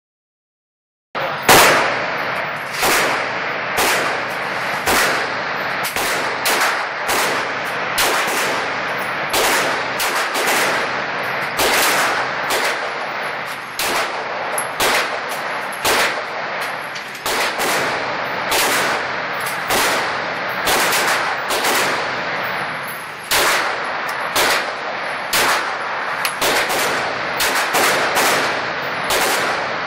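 Glock 34 9 mm pistol fired shot after shot at an irregular pace of about one to two a second, starting about a second in. Each shot rings on in the hard-walled indoor range.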